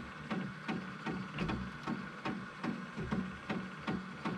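Monoprice Maker Ultimate 2 3D printer's stepper motors making short, jerky moves, a click with a brief buzz about three times a second. This is the start of a print that goes wrong, which the owner later puts down to the slicing program rather than the bed levelling.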